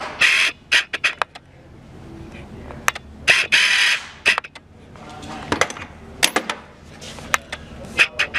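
Steel taps and dies clinking together as they are handled, with many sharp metallic clicks and a few short, ringing rattles.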